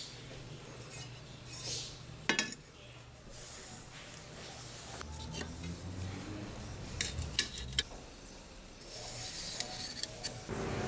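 Metal handling on a steel plate: a flat 5160 car-spring steel bar and a steel square are set down and slid into place, with a sharp clink a couple of seconds in and a quick run of clinks about seven seconds in. Near the end comes a scratchy rubbing, as of a marker drawing along the bar.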